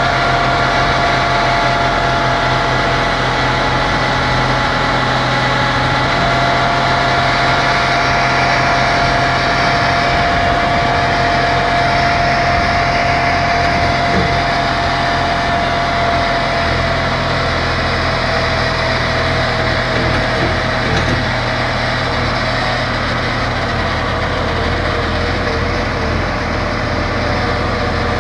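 Truck-mounted borewell drilling rig running steadily, a continuous engine drone with a steady whine on top.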